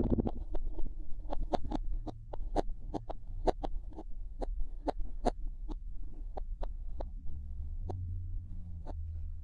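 Kinetic sand crunching in short, sharp, crisp clicks, irregular and about one or two a second, thinning out toward the end, over a low steady hum.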